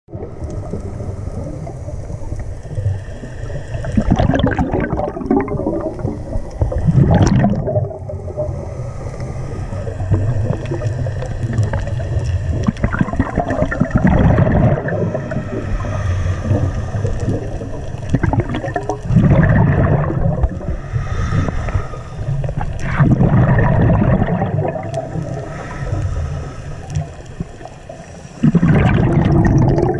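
Scuba regulator breathing underwater: six loud gurgling bursts of exhaled bubbles, roughly every four to five seconds, over a steady low underwater rumble.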